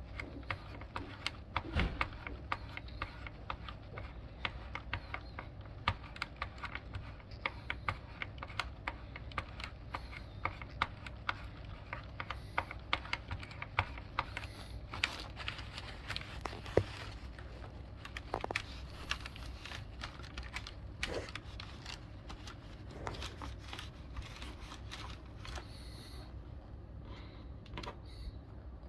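Rapid, irregular clicking and clacking of a Logitech G710+ mechanical keyboard's keys being handled, thinning out near the end.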